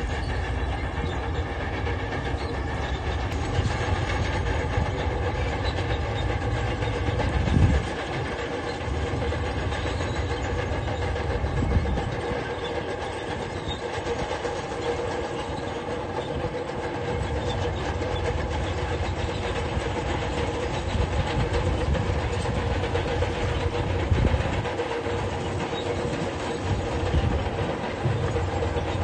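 Crawler bulldozer working: its diesel engine runs steadily while its steel tracks clank, with a few heavier low thumps along the way.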